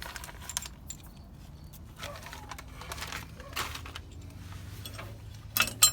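Light metallic clicks and taps of washers and nuts being fitted onto the flip kit's U-bolts, with two sharp clanks near the end.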